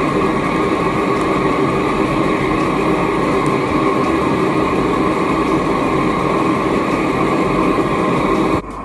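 Home-made propane-tank melting furnace running hard, a loud, steady rushing noise with a constant hum under it. It drops away abruptly near the end.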